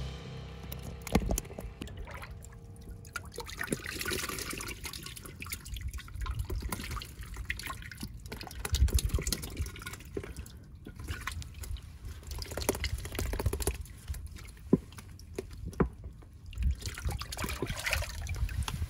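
Water splashing and dripping in irregular spurts and clicks.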